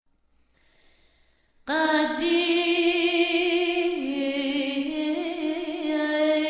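Near silence, then a little under two seconds in a slow song starts abruptly: a voice singing long held notes with vibrato, stepping down in pitch now and then.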